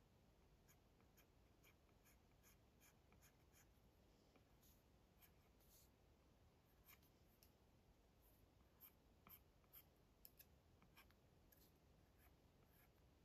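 Faint taps and light scratchy strokes of an Apple Pencil tip on an iPad's glass screen, many short strokes in quick succession, with a few sharper taps about nine to eleven seconds in.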